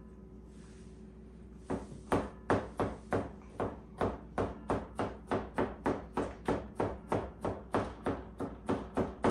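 A hand-held food chopper striking down through chopped vegetables on a plate over a stainless-steel counter: steady, repeated chopping taps, about three a second, starting a little under two seconds in.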